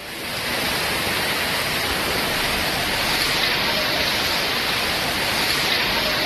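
Torrential rain driven by storm wind: a steady, dense rushing hiss that swells in over the first second and then holds level.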